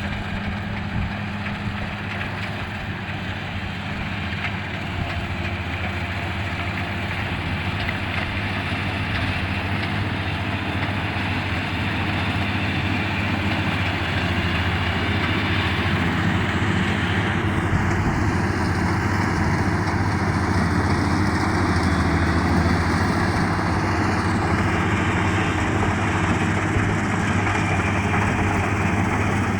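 Kubota DC-35 combine harvester running with a steady engine hum and the noise of its working parts, growing gradually louder.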